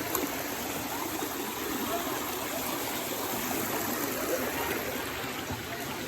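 Steady rushing of falling and flowing water at a waterfall, an even noise without breaks.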